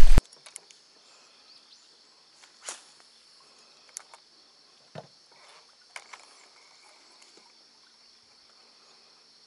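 Insects chirring steadily in a high, even band, with a few faint clicks about a second apart and a faint low hum underneath.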